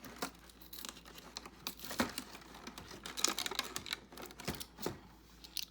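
Cardboard and plastic packaging being opened and handled by hand: a dense run of small irregular clicks and crinkles.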